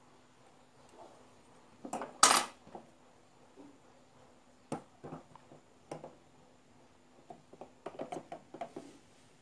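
Small metal parts of an electric blower motor being handled: one loud metallic clatter about two seconds in, a few separate clicks, then a quick run of clicks near the end as the armature is pushed into the stator.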